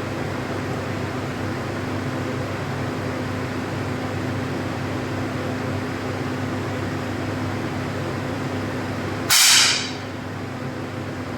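A single 10m air pistol shot about nine seconds in: one short, sharp pop with a brief hiss of released air. Under it is a steady hum of a fan or air conditioning.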